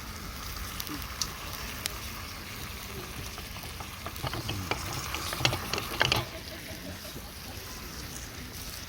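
Food sizzling in a pan over a campfire: a steady frying hiss with scattered crackles, and a burst of scraping and clatter about four to six seconds in.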